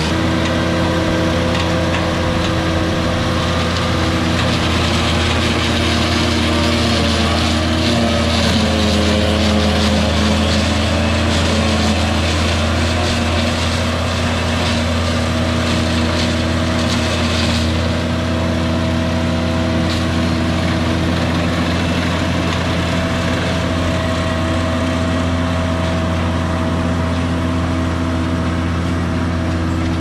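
Engine of a horse-drawn silage processor running steadily as the machine chops corn and blows silage into the wagon, its pitch shifting slightly about eight to ten seconds in.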